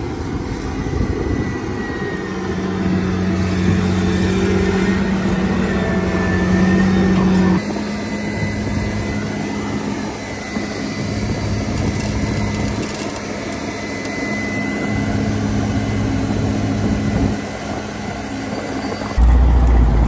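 Diesel engines of a combine and a tractor running steadily during soybean unloading, a deep even hum. The engine note changes abruptly about 7.5 seconds in, and again near the end when it becomes louder and lower.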